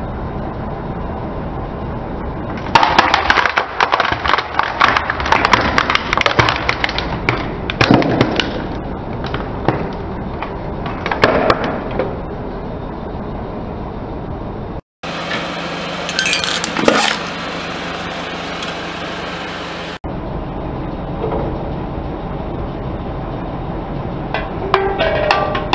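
A car tyre crushing a red plastic toy water pistol: the plastic cracks and crunches in a dense run of sharp snaps for about ten seconds over a steady low hum. After a cut comes a shorter burst of crunching, and a few clicks near the end.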